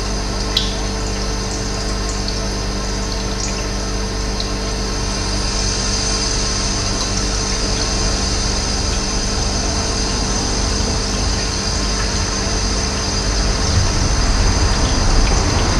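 Steady rushing of running water over a low, even hum, with a few short high chirps in the first few seconds. A low rumble builds near the end.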